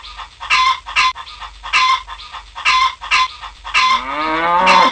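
Hens clucking: about six short clucks, then a longer call rising in pitch near the end.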